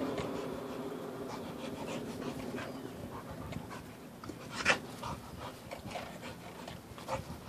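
Dog panting in quick, uneven breaths as it runs after bubbles, with one sharper click a little under five seconds in.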